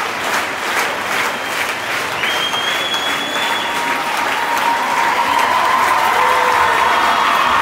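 Audience applauding and cheering in a large sports hall: at first the clapping beats in time, about three claps a second, then from about two seconds in long, high-pitched shouts of cheering ring out over steady applause.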